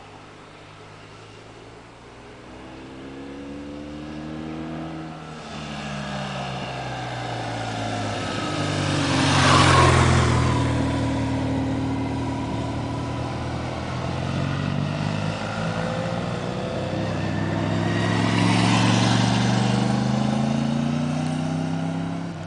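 Motorcycle engine climbing through hairpin bends, its revs rising and dropping with the gear changes. It swells to its loudest as it passes close about ten seconds in, then builds again to a second peak near nineteen seconds.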